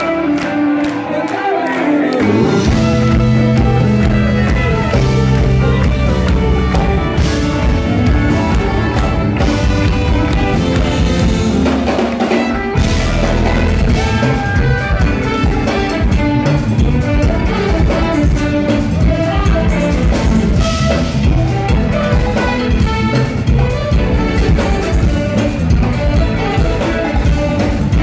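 Live jazz-fusion band playing loud: electric bass, drum kit and electric guitars, heard rough and close from right beside the stage. The bass and drums come in about two seconds in.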